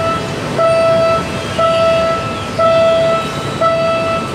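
Railway level crossing warning alarm sounding a steady pitched tone about once a second, each tone a little over half a second long.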